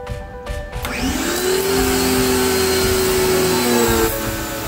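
Electric pressure washer starting up about a second in as the spray gun's trigger is pulled: the motor's tone rises and then runs steadily under the hiss of the water jet hitting concrete, its tone shifting near the end.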